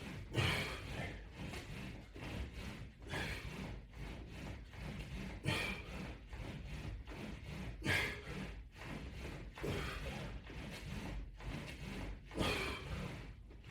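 Forceful breaths, about one every two and a half seconds, from a man doing resistance-band pull-down crunches, with light rubbing and thudding from the bands and equipment.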